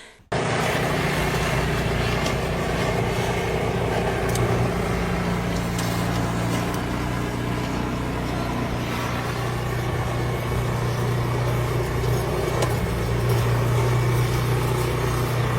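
An engine running steadily at a constant speed, a low even hum over a wash of noise.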